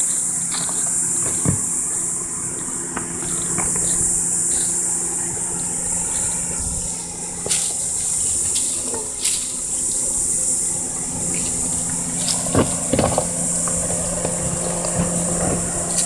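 Toyota RAV4 engine running at low revs as the SUV crawls over loose rocks, its tyres crunching and knocking on stones, the knocks coming thicker near the end as it passes close by. A steady high insect buzz runs under it.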